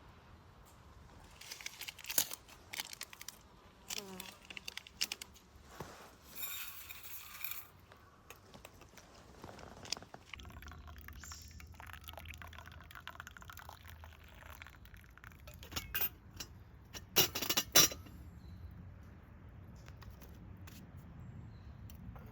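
Clinks of a cup or glass being handled, with liquid poured into it. Sharp clinks come early and again, loudest, near the end.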